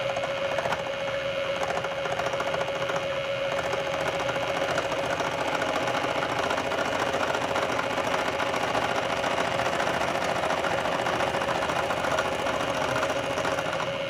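Bridgeport milling machine's face mill, spinning at about 800 RPM, taking a light facing cut across the end of a cast bronze stem: a steady whine over a fast, even ticking from the cutter.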